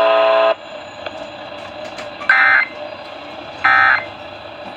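A steady electronic buzzing tone cuts off about half a second in, followed by two short identical data bursts of warbling tones about 1.35 s apart: the Emergency Alert System's digital SAME end-of-message (NNNN) bursts that close the alert.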